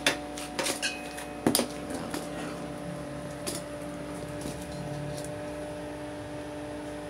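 A few clicks and knocks as a welding machine and its shoulder strap are handled, bunched in the first second and a half, over a steady hum.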